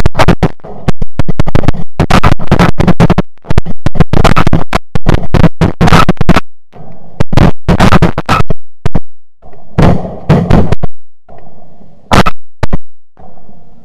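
Rapid, overlapping shotgun blasts from several hunters firing on a flock of snow geese, dense for the first half and thinning to a few scattered shots near the end.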